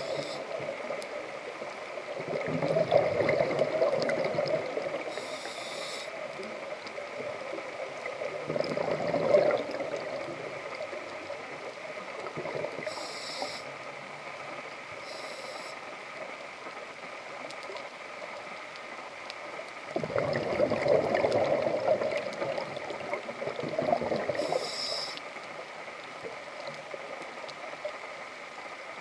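Scuba diver breathing through a regulator underwater: three long rushes of exhaled bubbles, with short hissing inhalations between them.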